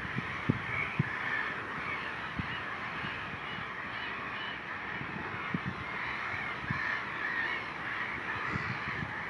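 A distant chorus of many birds calling at once, a steady dense clamour like a flock of crows or geese, with a few short higher calls over it and some low thumps.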